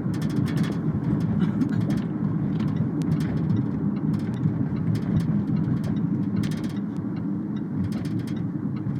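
Steady low rumble of a vehicle in motion, with a few faint clicks or rattles scattered through it.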